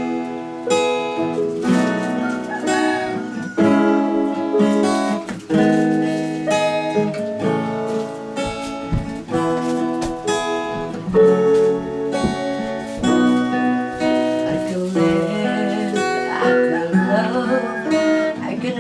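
Acoustic guitar strumming chords steadily: the instrumental introduction of a song, before the singing comes in.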